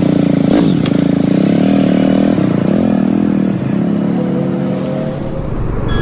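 Bajaj Dominar 400's single-cylinder engine running as the motorcycle rides, its pitch rising and falling a few times.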